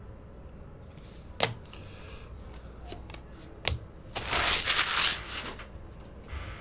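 Trading cards and their packaging handled on a tabletop: two sharp clicks, then a loud rustle lasting about a second, and a short softer rustle near the end.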